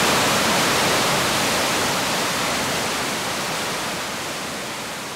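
Rushing water of a mountain river: a steady hiss with no distinct splashes, fading slowly and evenly.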